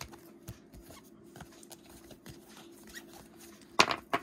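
Sportflics trading cards, their faces of hard plastic, being handled and flipped through by hand on a tabletop: light scratchy ticks and rustles as the cards slide over one another. A louder cluster of sharp clicks comes near the end.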